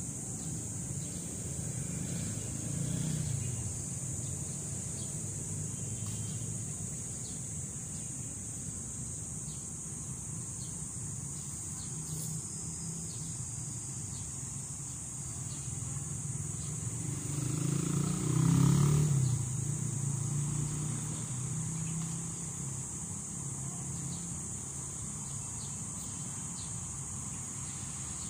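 Outdoor ambience: a steady high-pitched insect drone over a low traffic-like rumble, which swells briefly about three seconds in and more loudly about eighteen seconds in.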